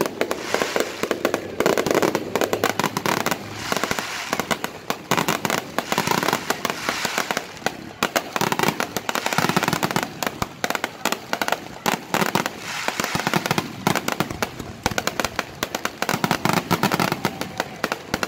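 Fireworks going off in quick succession: a dense, unbroken run of sharp bangs and pops as shot after shot is fired.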